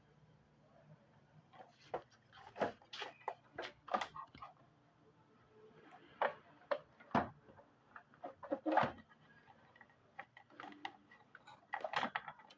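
Irregular clicks and light knocks of hard computer parts being handled and fitted during assembly, in uneven clusters.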